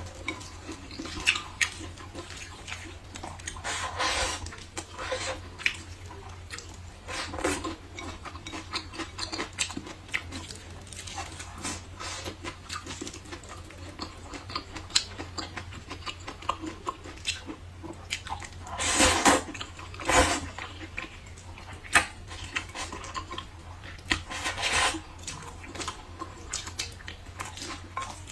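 Close-up eating sounds: wet chewing and slurping of glass noodles, with a few louder slurps, and wooden chopsticks clicking against a ceramic bowl.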